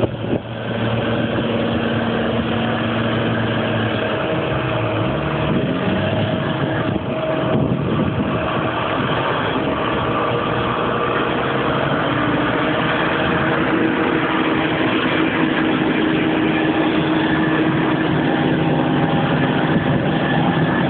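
Large farm tractor diesel engines running hard as tractors try to work free of deep mud. The engine note glides upward a few seconds in, then holds steady.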